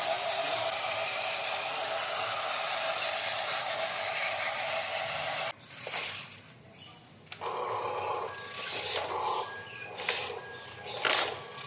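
Electric gear motors of metal RC construction models whirring steadily. The sound cuts off suddenly about five and a half seconds in, then starts again a couple of seconds later with a different pitch, with a few sharp clicks near the end.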